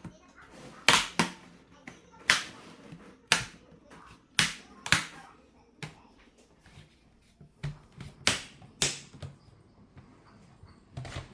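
Case of an HP Pavilion computer being opened: a string of sharp clicks and snaps, several coming in quick pairs.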